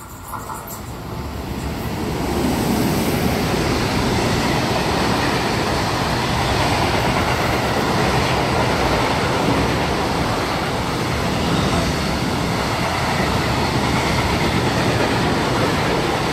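Freight train of covered hopper wagons rolling through the station, a heavy, steady rumble and clatter of wagon wheels on the rails. The noise builds over the first two to three seconds and then holds.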